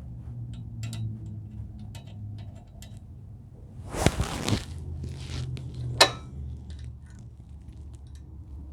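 Small metal hardware clinking and ticking as nuts and bolts are handled during assembly, with a louder scraping rattle about four seconds in and a sharp metallic clack about two seconds later, over a steady low hum.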